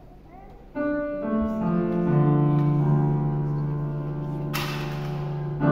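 Piano-like keyboard music: about a second in, notes enter one after another and build into a sustained chord over a held low note, with a brief hiss near the end.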